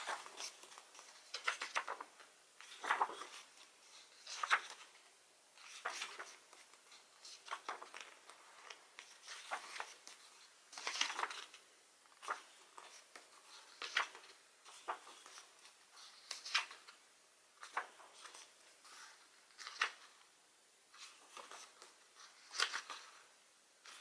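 Pages of a thick photobook being turned by hand, one after another, each turn a short papery swish or rustle, about one every second or two.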